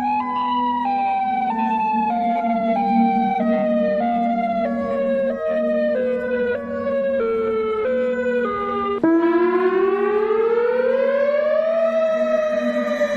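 Warning sirens. First a siren tone that steps down in pitch in short downward slides, about one and a half a second, over a steady low drone. About nine seconds in it cuts abruptly to an air-raid-style siren that winds slowly up in pitch for about three seconds and then begins to wind down.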